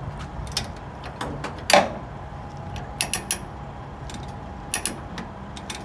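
A few sharp metallic clinks and knocks, the loudest about two seconds in and quick pairs or triples near the middle and end, over a steady low hum.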